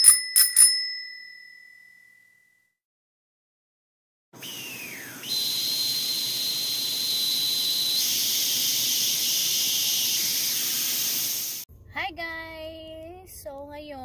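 Intro sound effects: a few clicks and a bright bell ding that rings away over about two seconds, then after a short silence a loud electronic static hiss with a falling whine that settles into a steady high whine, cutting off suddenly near the end. A woman then begins speaking.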